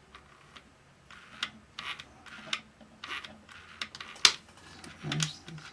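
Small plastic gears and parts of a toy robot's gearbox being handled and turned by hand, giving irregular clicks and short scrapes, with one sharp click about four seconds in.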